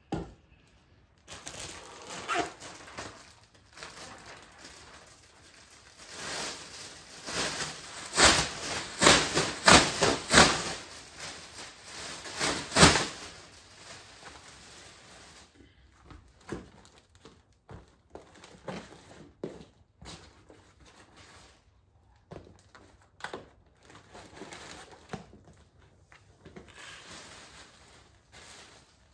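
Irregular sharp clicks and knocks of things being handled, with some crinkling, in a dense loud run in the middle and scattered fainter clicks after.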